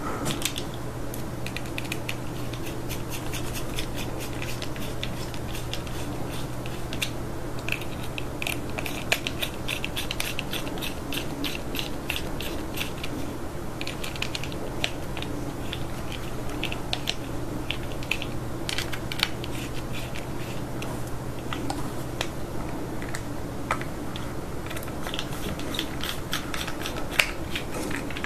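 Small precision screwdriver turning tiny M2 machine screws into a 3D-printed plastic case: runs of fast dry clicks and scratches, with short pauses between runs, as the screws cut their own thread into the plastic like self-tappers.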